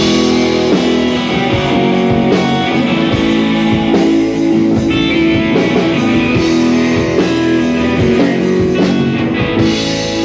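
Live rock band playing an instrumental passage: electric guitars strumming and picking over a steady drum beat with cymbals.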